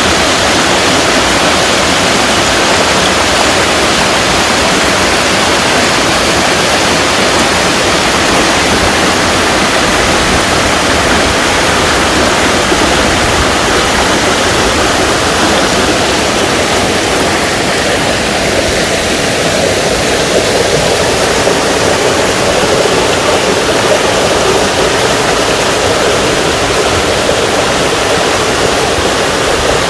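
Small waterfall in a mountain stream: water falling and splashing in a loud, steady rush.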